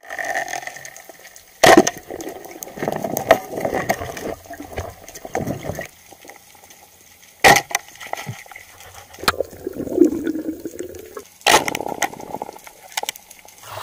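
Underwater sound through a diving camera's housing: scattered crackling and rustling, broken by three sharp knocks, about two seconds in, near the middle and near the end.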